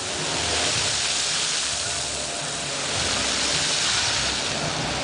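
Water pouring steadily from a street fountain pipe, an even splashing noise.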